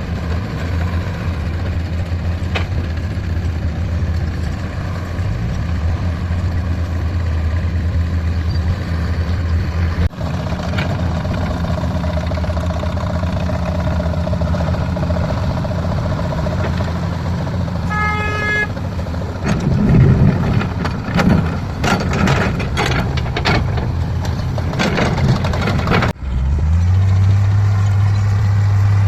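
Diesel engines of heavy earthmoving machines running steadily, with a brief horn toot about two-thirds of the way in, followed by several seconds of metallic clanks and knocks before a different engine takes over near the end.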